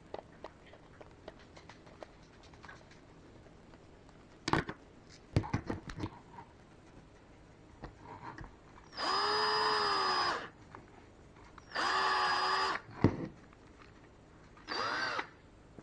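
Small electric drill run in three short bursts, the first about a second and a half, the second about a second, the last about half a second, each with a steady motor whine. Scattered clicks and knocks of handling come before the bursts, with a sharp knock after the second.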